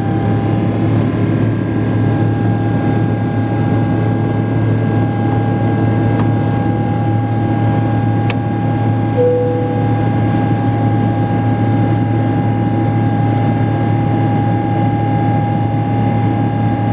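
Boeing 777-300 cabin noise in the climb after takeoff, heard beside the engine: a steady jet-engine drone and rushing air with a constant whine. A single short tone sounds once about nine seconds in.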